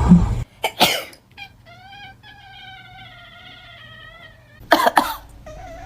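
A person coughs, then a domestic cat gives one long wavering meow of about three seconds, complaining at the coughing. Another cough comes near the end and the cat starts to meow again.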